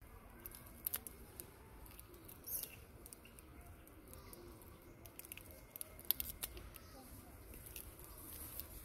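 Faint scattered clicks and soft rustling over a low background hiss, with sharper ticks about a second in, around two and a half seconds, and a quick cluster near six seconds.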